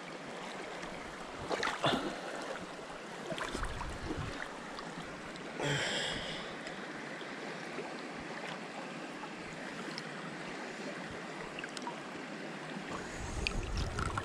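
Shallow river current flowing steadily around a trout held in the water, with a few brief splashes. A low rumble comes in near the end.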